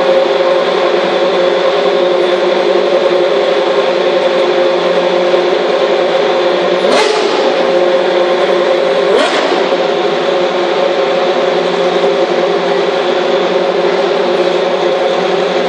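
Several single-seater race car engines running steadily at idle. Twice, about seven and nine seconds in, one is briefly revved, a sharp rising whine.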